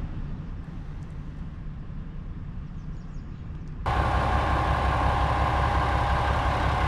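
Diesel railcar idling: a steady low engine rumble that turns suddenly louder about four seconds in, with a steady hum over it.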